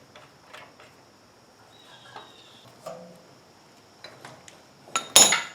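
Light metallic ticks and clicks of bolts and hand tools being worked on a small engine's carburetor mounting, with a louder metal clatter about five seconds in.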